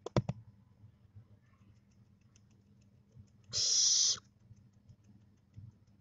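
Barn owlet giving one loud, harsh hissing screech, about two-thirds of a second long, a little past halfway through. Just before it, at the very start, comes a quick run of three sharp clicks.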